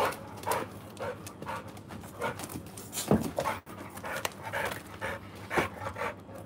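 American Bully dog panting in quick, regular breaths, with a sharp thump about three seconds in.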